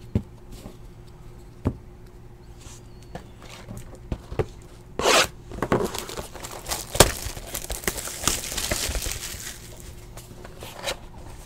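Trading cards and a cardboard hobby box being handled: a few sharp clicks in the first couple of seconds as cards are set down, then from about halfway a run of scraping and tearing as the box is picked up and its seal worked open.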